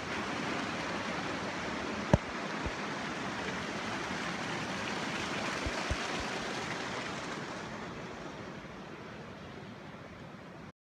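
Mountain creek and waterfall rushing, a steady hiss of water that fades over the last few seconds. A sharp click about two seconds in.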